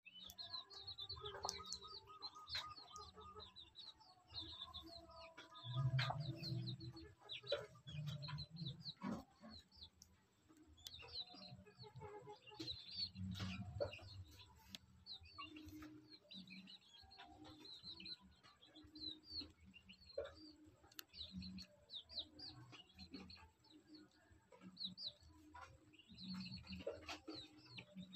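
Hen clucking low and repeatedly, about once a second, amid a constant stream of short high chirps.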